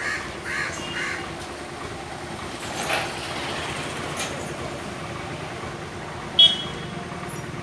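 Roadside traffic: a steady hum of passing vehicles, with one short, loud vehicle horn toot about six seconds in.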